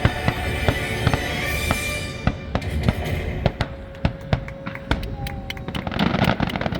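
Fireworks going off in quick, irregular pops and crackles over the show's music. The music fades out about two and a half seconds in, and the sharp pops and crackles carry on alone.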